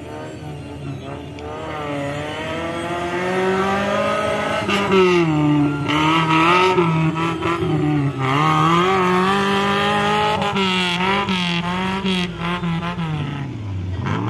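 Tube-frame off-road buggy's engine revving unevenly, its pitch rising and falling again and again as the throttle is worked over rough, muddy ground. It grows louder from about two seconds in and eases near the end.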